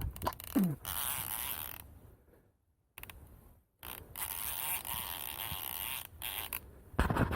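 Fishing reel working against a hooked catfish: a rasping, zipper-like mechanical sound in two stretches of about two seconds each, with a near-silent gap between them. Louder low rumbling noise comes in near the end.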